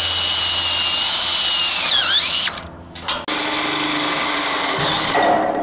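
Cordless drill driving self-drilling sheet-metal (Tek) screws into steel Z-channel: two runs of steady motor whine, each sagging in pitch near its end as the screw seats, with a short pause between.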